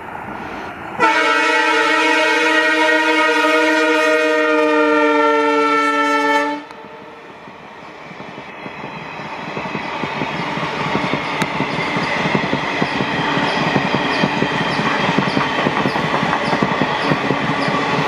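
WDG-4 (EMD GT46MAC) diesel locomotive sounding one long chord horn blast of about five and a half seconds, its pitch dropping slightly as it passes. Then the passenger coaches roll by with rhythmic wheel clatter over the rail joints, growing louder.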